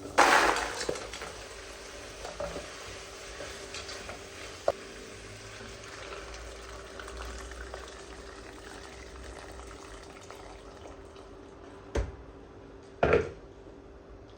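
Bathroom cleaning sounds: a short hissing rush at the start, then a faint steady hum broken by a few sharp knocks, with a second short rush near the end.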